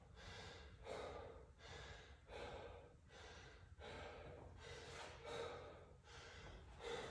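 A man panting hard and fast, short breaths in and out in a steady rhythm, winded from exertion in a workout of double-unders and pull-ups.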